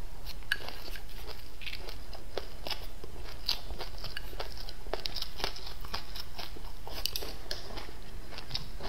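Close-miked chewing and biting of fried fish and rice, with many small irregular mouth clicks several times a second.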